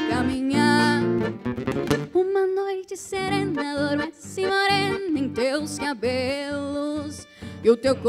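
Music: an electro-acoustic classical guitar plays a melodic instrumental passage of a gaúcho song, with band accompaniment.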